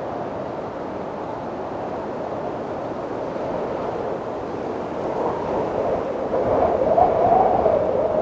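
Wind blowing steadily with a low hiss. About two-thirds of the way in, a gust builds with a wavering, howling tone.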